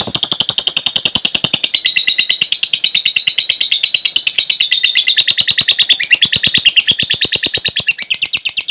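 Lovebird ngekek: one long, unbroken chattering trill of sharp high chirps, about ten a second.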